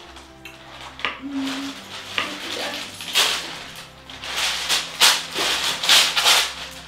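Baking paper rustling and crinkling as it is unrolled and folded to fit into a baking tray, in several loud bursts, the biggest in the second half. A few light knife taps on a cutting board sound early on.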